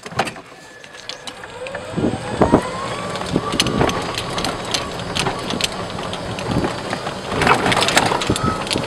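Golf cart pulling away and driving on: its motor whine rises in pitch over about a second and a half, then holds steady, with scattered knocks and rattles from the cart as it rolls.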